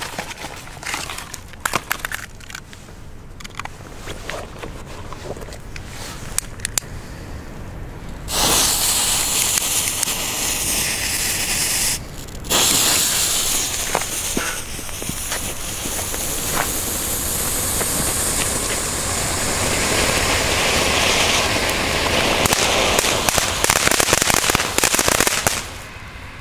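Small cone fountain fireworks (Vegas Vulcanus) hissing steadily as they spray sparks. The hiss starts about eight seconds in, breaks off for a moment around twelve seconds, then runs on until just before the end. Before it come scattered sharp crackles and clicks.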